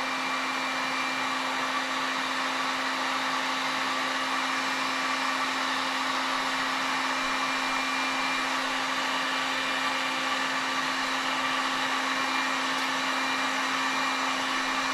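Electric heat gun running steadily, blowing hot air onto heat-shrink tubing: an even rush of air with a constant low hum.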